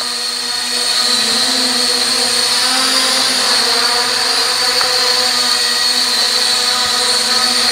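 Small toy quadcopter drone flying, its four motors and propellers making a steady high-pitched buzzing hum that wavers slightly in pitch as it hovers and moves.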